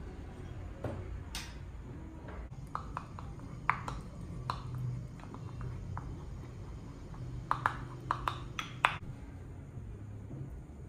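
Kitchen utensils clinking and tapping against a ceramic bowl and a pan as egg yolk is stirred and warm pudding is ladled in: scattered light clinks, a group about four seconds in and a quicker run near the end.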